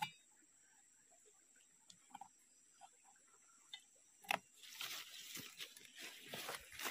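Faint handling noise: a few soft clicks, a sharp knock about four seconds in, then an uneven rustling crackle. No chainsaw is running.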